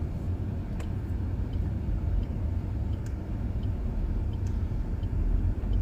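A small car's engine and tyres heard from inside the cabin, a steady low rumble as it rolls slowly, with faint small ticks about every two-thirds of a second.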